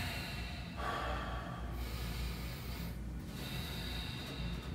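A man taking slow, deep breaths, each one an airy rush of air: one about a second in and another through the second half. This is a deep breath drawn on request to test how easily he breathes. A low steady room hum runs underneath.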